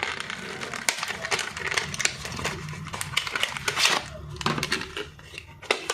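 Hands handling small computer parts and plastic packaging: crinkling and rustling with many small clicks and taps.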